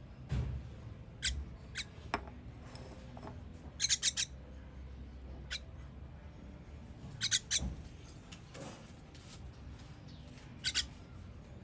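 Baby bird giving short, high-pitched cheeps in scattered bursts of one to four, the begging calls of a nestling being fed, with a soft thump or two.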